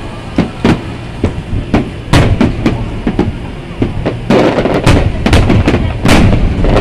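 Aerial fireworks shells bursting in a rapid, irregular string of loud bangs, coming thicker and faster about four seconds in.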